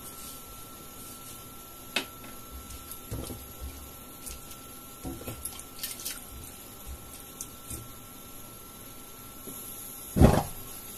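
A spatula stirs pork and scallions in chicken stock in a wok: liquid sloshing, with scattered scrapes and clinks of the spatula against the pan and one louder clunk near the end.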